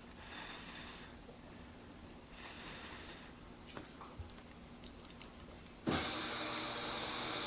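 Two soft breathy puffs, a person blowing on a hot forkful of baked pasta to cool it, with a few faint ticks of the fork. About six seconds in, a steady hiss comes up suddenly.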